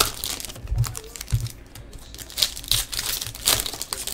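Foil wrapper of a baseball card pack being torn open and peeled back by hand: irregular crinkling and crackling of the foil, with a couple of dull low thumps about a second in.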